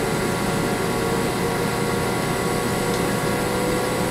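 Haas ST30 CNC lathe running with its spindle turning and a jet of high-pressure coolant on the tool: a steady machine hum with several steady tones over a hiss.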